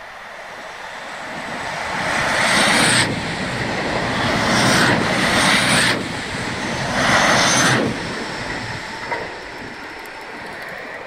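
DSB IC4 diesel multiple unit passing close beneath a bridge: the wheel-on-rail and running noise grows, stays loud for about six seconds in three surges with sudden dips as the cars go by, then fades away.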